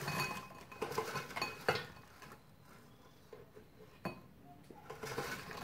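Air-fried chips tipped from the air fryer basket into a ceramic bowl: light clatter and clinks of chips and basket against the bowl, busiest in the first two seconds, with a single sharper knock about four seconds in.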